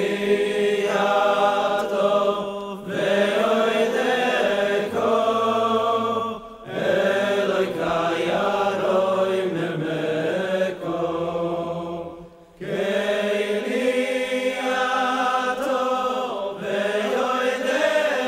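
Chanted vocal music: a single voice sings long, gliding melodic phrases with short breaks between them, in the manner of Jewish liturgical chant.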